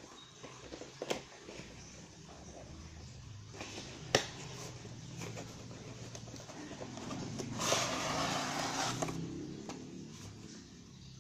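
Handling of a cardboard model-kit box: a few light clicks, a sharp tap about four seconds in, then about a second and a half of scraping as the box lid slides off. A low steady hum runs underneath.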